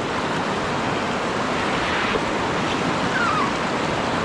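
Whitewater river rapids rushing steadily around an inflatable raft, the churning water an even, continuous noise.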